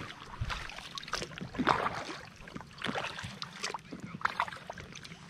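Double-bladed paddle strokes dipping into and pulling through lake water beside an inflatable kayak, with irregular splashes and drips.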